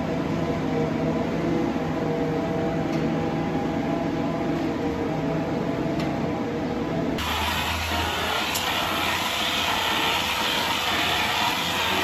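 Steady machinery noise: a low hum with several held tones. About seven seconds in it cuts abruptly to a steady, brighter hiss.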